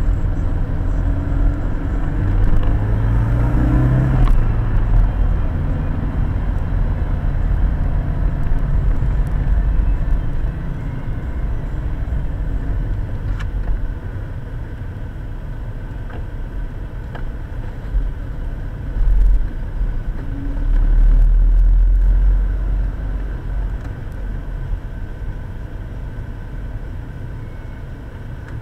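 Car engine and road noise heard from inside the cabin while driving in city traffic. The engine note rises a few seconds in, and the noise eases off after about ten seconds as the car slows in queuing traffic, with a short louder rumble twice near 20 seconds.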